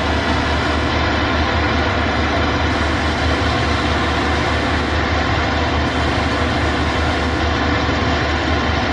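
Heavy engine of the tree-removal crew's machinery running steadily at a constant pitch, with a low rumble underneath.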